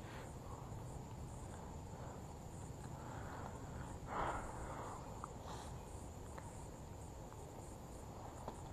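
Insects chirping steadily, a faint high pulsing trill, with a brief rustle about four seconds in.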